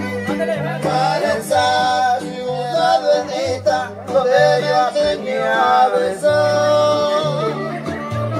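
Live huasteco son (huapango) music: a singing voice over strummed string instruments and a bass line that steps between notes.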